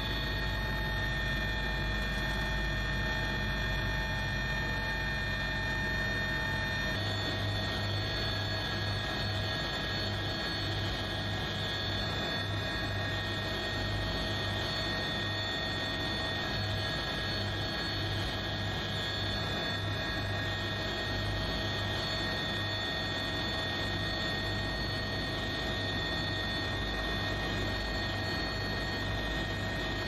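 Steady drone of a helicopter's engine and rotor, with several steady humming tones; its tone changes abruptly about seven seconds in.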